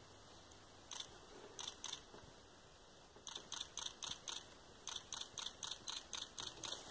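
Camera shutters clicking, singly and in quick pairs, a few at first and then about three a second from about three seconds in.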